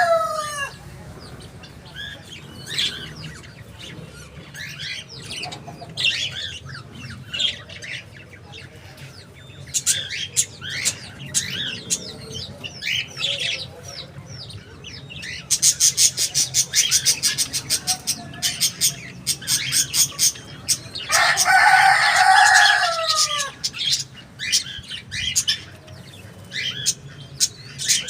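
Budgerigars chirping and warbling, with a fast run of sharp clicks about 16 seconds in. A rooster crows once, for about two seconds, falling in pitch at its end, about 21 seconds in.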